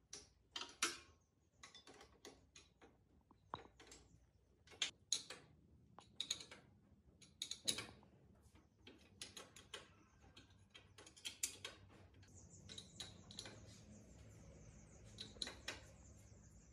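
Irregular sharp clicks and taps of metal parts and hand tools being handled during workshop restoration work. About twelve seconds in, a faint steady high whine with a low hum underneath joins them.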